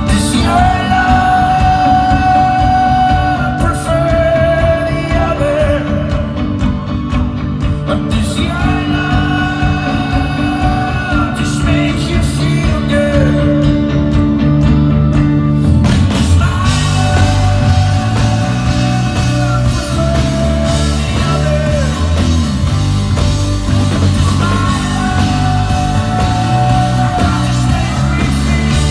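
Live folk-rock band with a male lead singer holding long notes in phrases of about four seconds, over guitar, bass and drums. About sixteen seconds in, the band grows fuller and louder.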